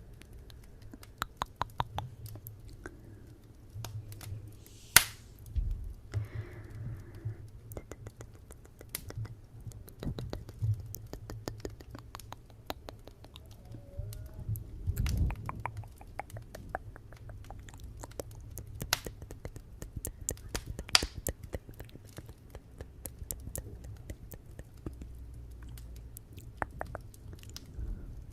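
Wood fire crackling in a fireplace: a steady run of small sharp pops at irregular intervals, with one louder pop about five seconds in.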